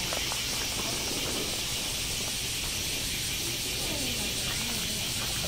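Chorus of summer cicadas: a steady, high-pitched shrill buzz that holds at an even level throughout.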